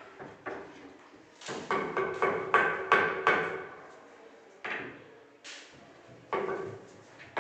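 Kitchen cabinet doors and drawers being opened and shut. A quick run of knocks and bangs with a short ringing comes about a second and a half in, then single bangs a second or so apart.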